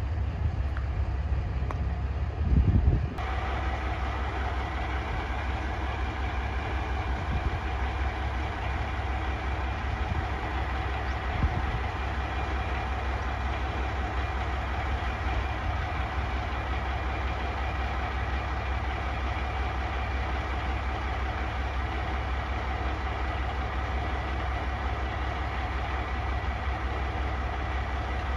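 JR Shikoku 1550-series diesel railcar idling at the platform, a steady engine hum. It follows a brief low thump about two and a half seconds in.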